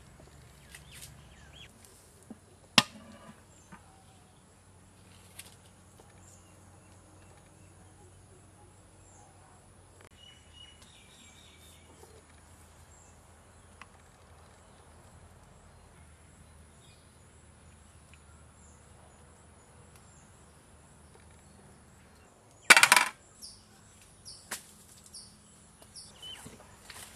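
Quiet outdoor background with a few sharp knocks, one about three seconds in, and a brief loud clatter a little before the end followed by some lighter knocks.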